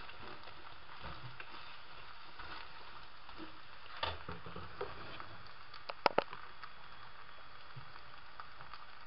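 Egg and fried potato slices frying gently in a pan: a steady soft sizzle. A metal skimmer stirs the mix, knocking once about four seconds in, then clinking sharply against the pan several times about six seconds in, two of the clinks loudest.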